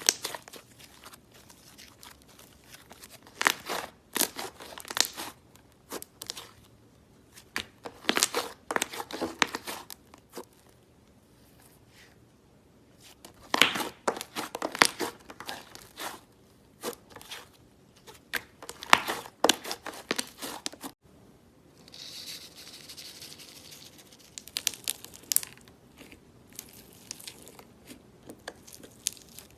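Slime being squeezed and kneaded by hand, giving clumps of crackling clicks and pops a second or two long, with short quiet gaps between.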